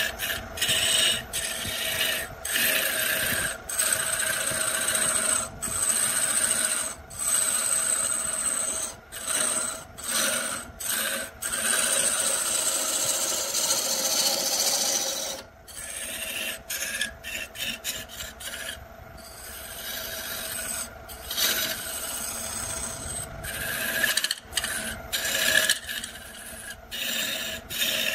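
Wood lathe: a hand-held turning tool scraping into a spinning block of wood, making a loud hissing scrape with a steady ringing tone in it. The sound is broken again and again by brief gaps, which come faster about two-thirds of the way through and again near the end.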